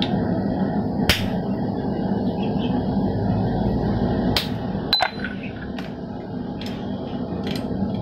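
About six sharp, irregularly spaced hammer blows, metal on metal, on a hand-held tool set into the eye of a glowing steel hammer blank on the anvil. One blow rings briefly. A steady rushing noise runs underneath.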